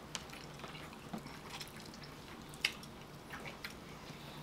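Wet eating sounds of rotisserie chicken: chewing, and meat and skin being torn apart by hand, as short scattered squishy clicks and smacks, the sharpest a little past halfway.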